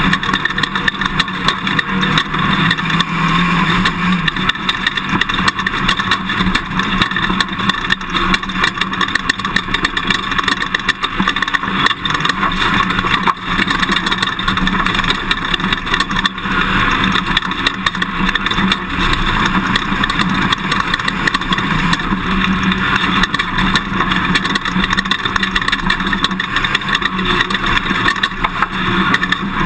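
Toyota Tundra pickup driving off-road on a desert race course: steady engine noise mixed with loud road and wind noise, unbroken throughout.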